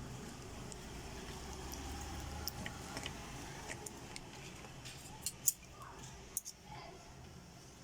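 Light scattered clicks and rustling as insulation paper is worked into the slots of a ceiling fan's stator during rewinding, over a faint steady low hum.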